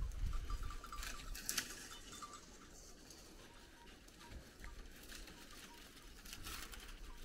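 Faint rustling and scuffing with a few short crackles, against a low rumble near the start; no animal call stands out.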